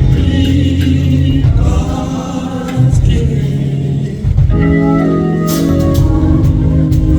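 Gospel organ music with strong low bass notes, playing steadily.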